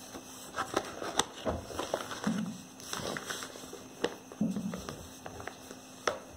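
A notebook page being turned over and pressed flat by hand: paper rustling with scattered sharp clicks and taps.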